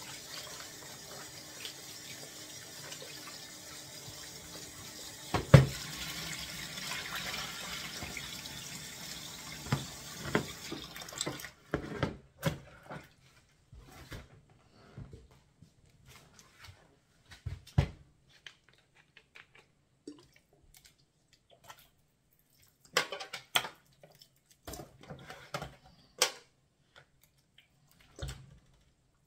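Kitchen tap running into a plastic bowl of whole fish as they are rinsed, with a sharp knock about five seconds in. About halfway through the running water stops suddenly, leaving scattered knocks, clatters and small splashes from handling the bowl and a plastic bottle.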